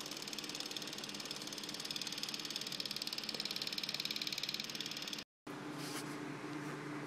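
A machine running with a steady hum and a fast, even buzzing rhythm. It cuts out abruptly a little past five seconds in, and a lower, steadier hum carries on after.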